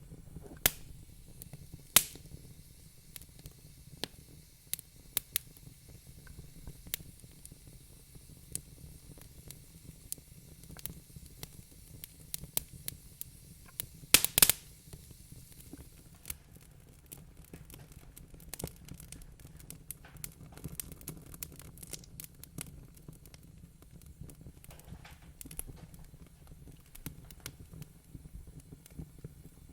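Wood fire crackling in a fireplace: irregular sharp pops and snaps over a low steady rumble, with a burst of loud pops about halfway through.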